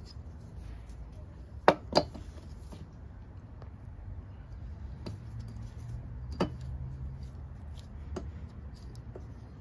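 Sharp metallic clicks and taps of a partly disassembled Kohler Courage electric starter motor being handled: two loud clicks close together about two seconds in, another about six and a half seconds in, and a few fainter ones, over a low steady hum.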